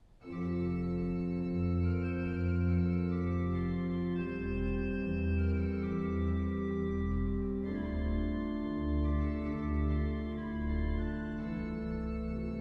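1906 P.J. Adema pipe organ playing loud sustained chords over a deep pedal bass. It comes in suddenly after a near-quiet pause, and the harmony moves to new chords at about four and eight seconds.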